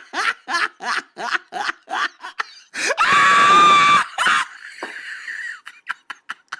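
Human laughter: quick short bursts of laughing, about four a second, for two and a half seconds, then a loud high shriek of laughter held for about a second, trailing into a wheezy, breathy laugh.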